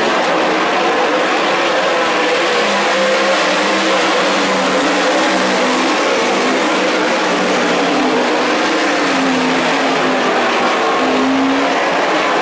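Winged sprint cars' V8 engines racing at full song, a loud unbroken din with the engine pitch rising and falling as the cars go around the track.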